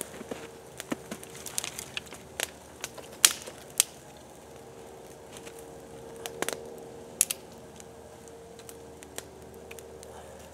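Wood campfire crackling, with irregular sharp pops and cracks, a few louder ones about three seconds and seven seconds in.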